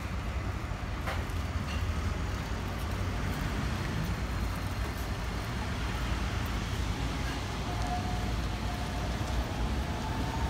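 Steady street-traffic rumble as a Toden Arakawa Line tram pulls away along its track, receding into the distance.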